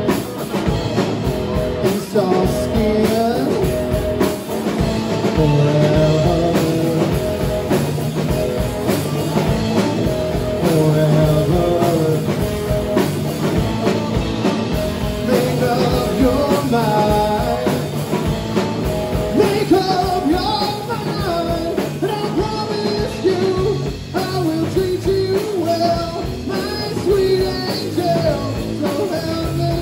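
Live rock band playing loudly: electric guitars, bass guitar and drums, with a male lead vocal.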